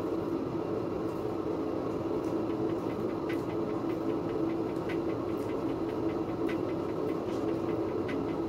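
Steady hum of a household appliance running, with faint light clicks scattered through it about once a second as food and plastic containers are handled.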